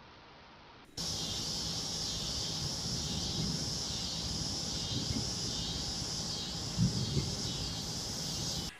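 Steady, high-pitched insect chorus, typical of crickets, starting about a second in, with a low rumble on the microphone beneath and a couple of soft knocks about seven seconds in.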